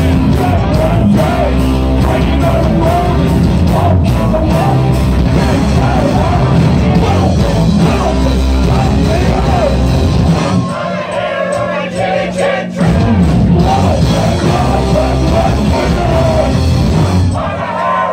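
A punk rock band playing loud live, with distorted electric guitar, drums and yelled singing. About ten seconds in, the heavy low end drops away for a couple of seconds, then the full band comes back in.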